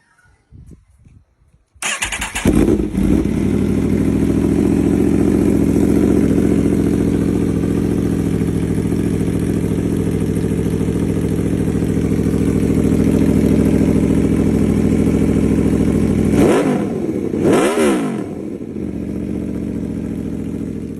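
Four-cylinder superbike with a Racefit aftermarket exhaust starting up about two seconds in and idling steadily. Near the end it is revved twice in quick blips, the pitch rising and falling each time, then settles back to idle.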